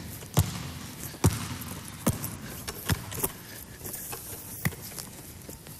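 Basketball dribbled on a sports-hall floor from a wheelchair: about six sharp bounces at an uneven pace, roughly one a second.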